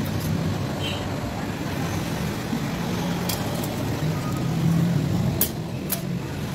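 Steady low vehicle rumble, like traffic or an engine running nearby. Over it come a few sharp metallic clicks about three and a half and five and a half seconds in, as metal spring clamps are handled and set on a car headlight housing.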